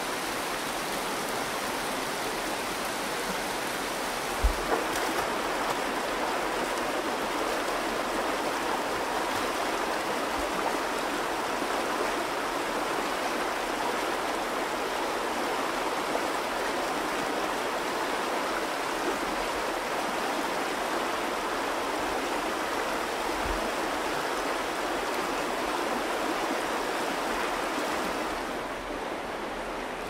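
Flowing river water rushing steadily. There is a low thump about four seconds in and a fainter one later, and the rush turns slightly quieter and duller near the end.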